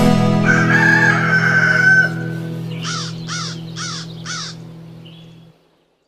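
A viola caipira's last chord ringing and slowly fading, cut off sharply about five and a half seconds in. Over it a rooster crows once, then a bird gives four quick arched calls about three seconds in.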